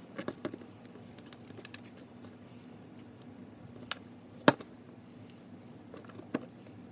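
Handling noise from a phone and metal fidget spinners on a table: a few faint clicks and one sharp knock about four and a half seconds in, over a low steady hum.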